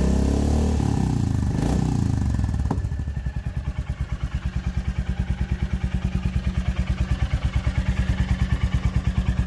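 Royal Enfield Classic 350's single-cylinder engine, breathing through the stock catalytic converter and a bevel-cut exhaust tip, dropping off in revs over the first few seconds and then settling into an even, pulsing idle. The note is deeper and a little quieter than with the open full system.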